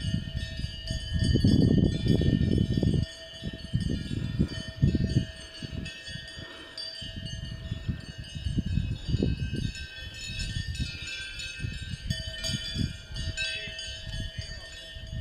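Cowbells on a herd of Montbéliarde cows ringing and clanking as the cows walk, several bells of different pitches sounding at once.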